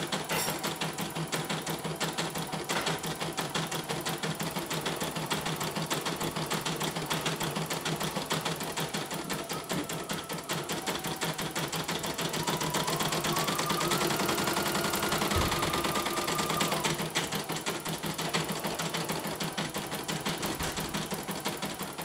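CNY E900 portable embroidery machine stitching a design, its needle bar hammering out a fast, even run of stitches. This is a test run after a mainboard replacement. About halfway through, a higher whine rises, holds for a few seconds and drops away again.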